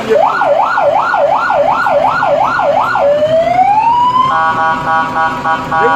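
Electronic siren yelping, about two fast up-and-down wails a second for some three seconds, then one slow rising tone, then a steady horn blast.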